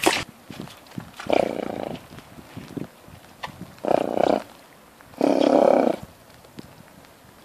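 A grazing horse blowing out hard through its nostrils three times, a couple of seconds apart, the last blow the loudest.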